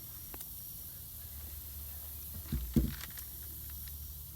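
Handling noise as a rifle scope is moved in the hands: a few faint ticks and one short, dull bump about two and a half seconds in, over a steady low hum.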